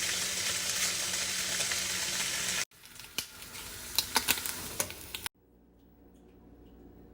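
Pancake batter sizzling steadily in a frying pan, cut off abruptly about two and a half seconds in. Next comes a quieter stretch of sizzling with several sharp clicks and taps, as of a utensil against the pan. That also stops suddenly, leaving only a faint background.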